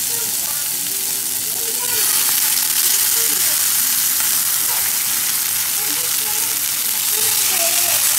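Haddock fillets sizzling in hot olive oil in a frying pan on high heat, a steady hiss that grows louder about two seconds in as more fish goes into the pan.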